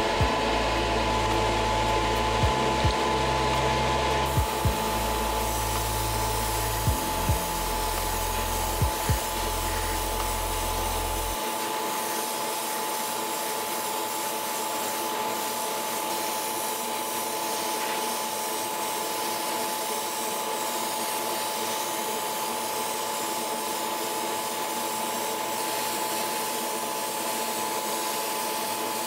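Hobby spray booth's extractor fan running steadily with a constant whine, joined by the hiss of an airbrush spraying primer. A deep bass pattern with a few thumps plays for the first eleven seconds or so, then stops.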